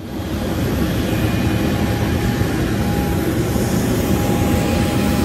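Jet aircraft engine noise: a steady, loud rumble with a thin, steady whine running over it.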